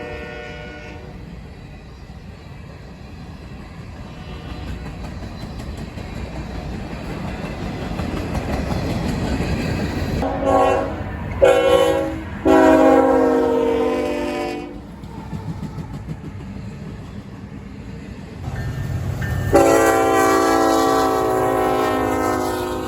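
Multi-chime locomotive air horn. A blast fades out at the start, then the rumble of an approaching train builds. About ten seconds in the horn sounds two short blasts and a longer one, and a long blast starts near the end.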